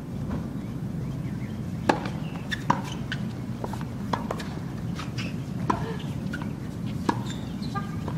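Tennis rally: a tennis ball is struck by racquets and bounces on the court, giving a string of sharp pops about a second apart, over a steady low rumble.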